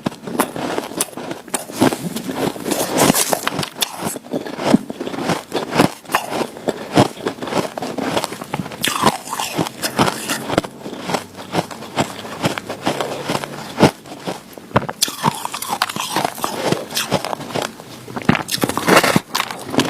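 A person biting and chewing white snow ice: a dense, irregular run of crisp crunches and crackles.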